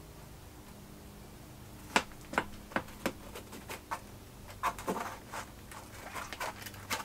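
A butter knife running around the edge of a mini springform cheesecake pan, ticking and scraping against the metal ring. There is a string of light clicks from about two seconds in and a short stretch of scraping near the middle, to break the cheesecake's seal from the pan.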